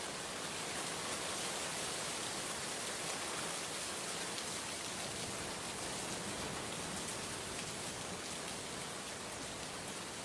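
Steady rain falling: an even hiss with faint ticks of drops.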